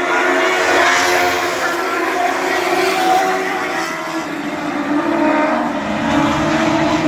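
A pack of dwarf race cars running at speed on an oval, several motorcycle-sized engines at high revs at once, their notes rising and falling as the cars pass and go around.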